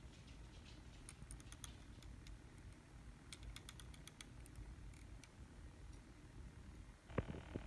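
Near silence: low room rumble with two short runs of faint, sharp ticks, and one louder knock near the end.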